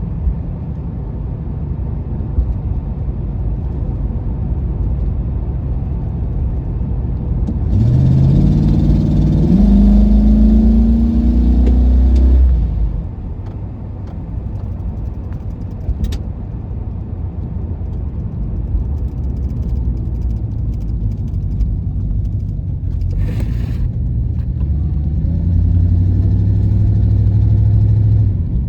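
1996 Chevrolet Impala SS's 5.7-litre LT1 V8 running while the car is driven. About eight seconds in it accelerates, its note rising and getting louder for some four seconds before easing back to a steady cruise. It gets louder again near the end.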